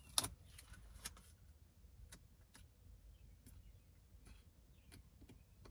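Faint scattered taps and clicks of a dust-removal sticker and fingertips dabbing against a car's infotainment touchscreen glass, lifting dust off the screen. One sharper click comes a fraction of a second in.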